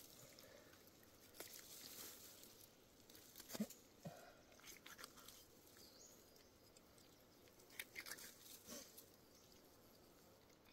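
A few faint, scattered wet cutting and rustling sounds as a knife works inside a black bear carcass during field dressing.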